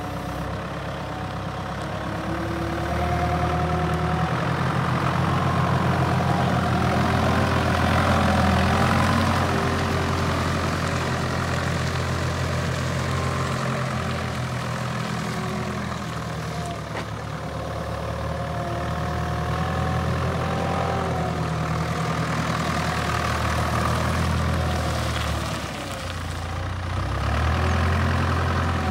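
Stocka forklift engine running as the truck drives and turns, with a higher whine rising and falling over the engine hum. It revs up a few seconds in, eases off about halfway, and picks up again near the end.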